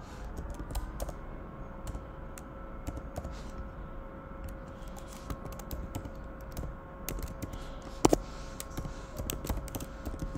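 Typing on a computer keyboard: irregular key clicks, with one louder click about eight seconds in, over a faint steady hum.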